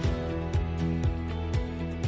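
Background music with a steady beat: a kick drum comes in at the start and hits about twice a second under held chords and quick high ticks.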